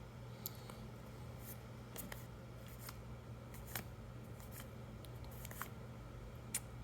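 Faint clicks, flicks and light rustles of trading cards being handled and flipped through, at irregular moments over a steady low electrical hum.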